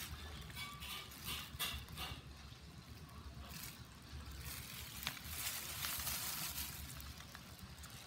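Rustling and crackling handling noise with scattered small clicks, coming and going in two main stretches, over a low steady hum.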